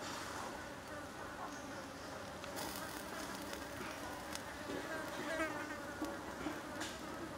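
Insects buzzing steadily, with a few sharp clicks.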